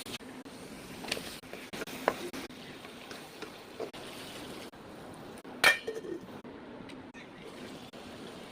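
Kitchen utensils clinking and knocking against cookware while cooking, a few separate strikes with the loudest a little past the middle, over a steady low hum.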